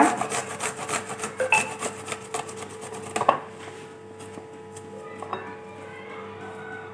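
Garlic clove rubbed on a metal box grater: quick rasping strokes, several a second, for about the first three seconds, then fainter scraping. A steady faint hum lies underneath.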